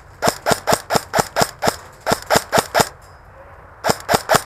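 Airsoft gun fired as quick single shots, sharp snaps at about four to five a second. After a pause of about a second near the end, a few more quick shots follow.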